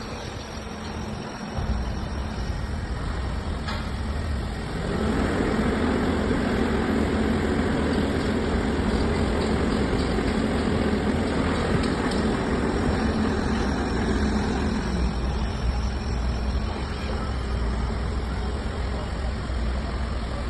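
A heavy vehicle's engine running steadily with a low rumble. It grows louder for about ten seconds in the middle, then eases back.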